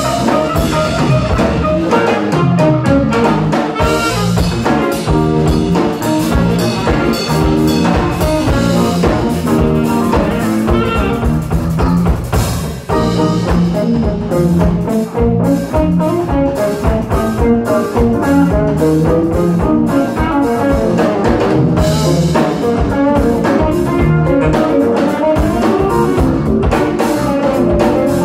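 Live band playing an instrumental jazz-funk jam: drum kit, electric guitars and bass guitar, with a saxophone in the first part.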